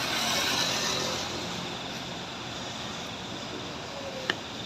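Heavy vehicle engine running steadily during a slow towing manoeuvre, with a hiss in the first second and a single sharp click near the end.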